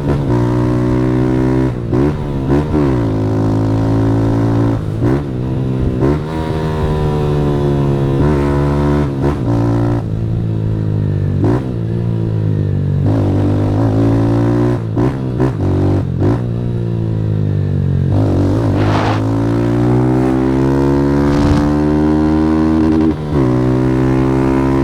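Motorcycle engine through a Fortuna Trioval aftermarket exhaust, pitch repeatedly rising as it accelerates and dropping back, with brief dips at gear changes while riding.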